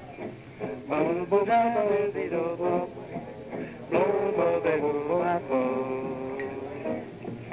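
Live small-group jazz from an old live recording: electric archtop guitar, double bass and piano playing a melodic passage. The sound is dull, with almost no treble.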